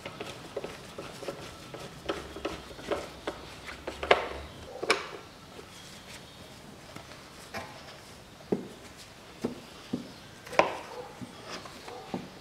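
Irregular clicks, taps and knocks of a screwdriver and gloved hands on a hard plastic air filter housing as it is fastened back in place, with a few sharper knocks about four, five and ten and a half seconds in.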